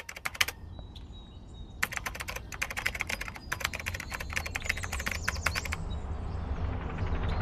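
Computer keyboard typing sound effect: rapid keystrokes in three bursts, the last stopping about six seconds in, over a low rumble that slowly swells louder.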